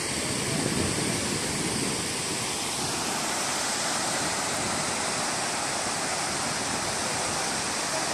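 Steady, unbroken rush of falling water from a tall waterfall and the river below it in a rocky gorge.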